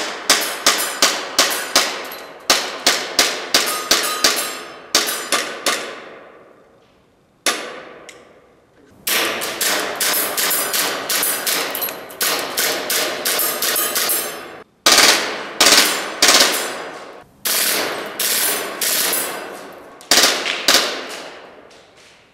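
WE Glock 18 and Glock 26 gas blowback airsoft pistols firing: strings of sharp shots with the slide cycling, each ringing out in a large hall. About nine seconds in comes a long rapid burst lasting about five seconds, with more strings of shots after it.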